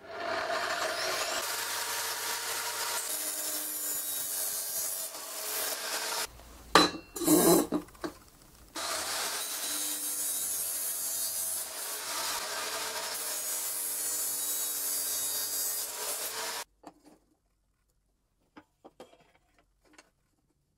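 Large angle grinder with a 320 mm cutting wheel cutting through square steel tube in two long runs, with a few loud metal knocks between them. The cutting stops sharply about 17 seconds in, followed by a few faint clicks.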